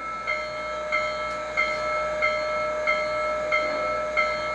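Steam locomotive bell ringing steadily, struck about one and a half times a second, played back through the onboard speaker of an MTH Proto-Sound 3.0 G-scale Union Pacific Big Boy model.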